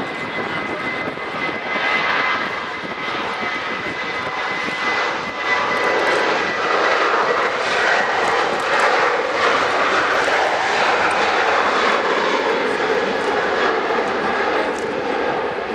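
Boeing 737-800's CFM56-7B jet engines on the runway at the start of the take-off: a steady whine, then a louder, broad roar that builds from about six seconds in and holds.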